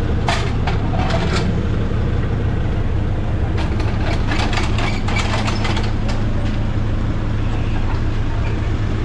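A vehicle engine idling steadily, with bursts of metal clicks and rattles as a wheel clamp is fitted onto a van's front wheel, the first near the start and a longer run in the middle.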